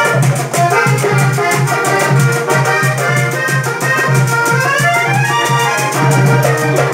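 Instrumental break of a merengue played live on a button accordion, which leads with quick running phrases, over acoustic guitar, a pulsing bass line and a fast, even percussion beat.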